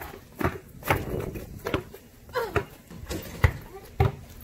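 Basketball dribbled on a plastic sport-court tile surface: about six separate bounces at an uneven pace.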